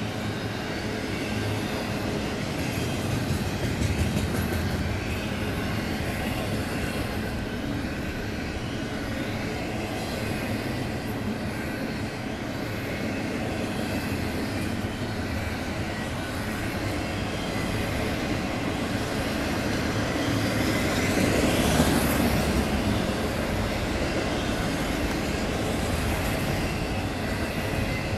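Double-stack intermodal freight train rolling past, its container well cars making a steady rumble and clatter of wheels on rail. The sound swells to its loudest about three-quarters of the way through.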